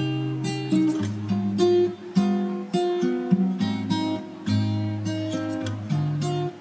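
Background music: an acoustic guitar plucking a melody, two or three notes a second.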